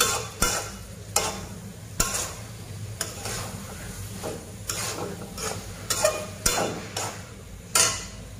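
Metal spatula scraping and turning diced beef heart and masala in a wok, in irregular strokes about once a second, over a light frying sizzle and a steady low hum.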